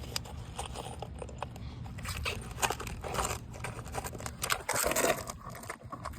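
Asphalt roof shingles being handled while nails are pulled: irregular scraping and crinkling with a few light knocks, the longest scrape about three-quarters of the way through.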